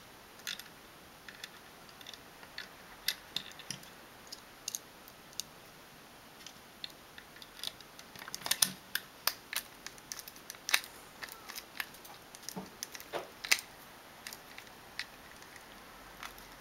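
Small metal hand tools clicking and tapping against the plastic printhead housing and its parts during reassembly: irregular sharp clicks, busiest from about eight seconds in.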